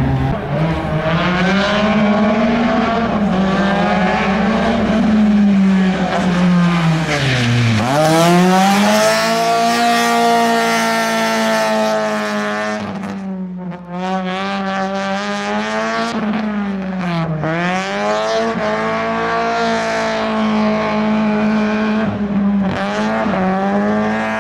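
Rally hatchback's engine revving hard and held at high revs while it spins its smoking tyres in tight circles on tarmac, with tyre squeal. The revs drop sharply and climb back twice, about a third and two thirds of the way through.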